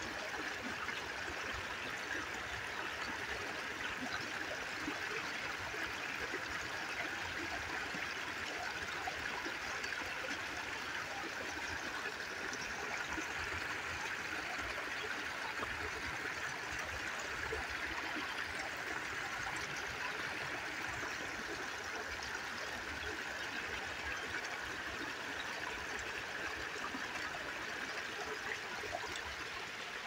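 Small, shallow woodland stream splashing over a rocky step: a steady rush of falling water.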